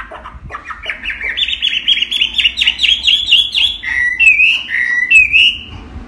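Chinese hwamei singing: short notes at first, then from about a second in a fast run of repeated whistled notes that climbs in pitch and loudness. Near the end it switches to slurred whistles alternating low and high.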